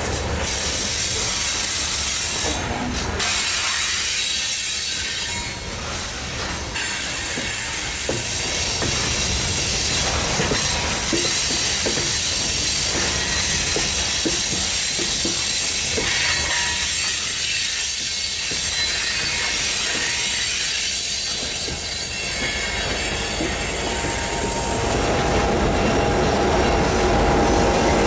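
Loaded coal hopper cars of a freight train rolling past: a steady rush and hiss of steel wheels on rail, with clicks as the wheels cross rail joints and a thin wheel squeal now and then. Near the end a low diesel rumble builds as the rear distributed-power locomotives approach.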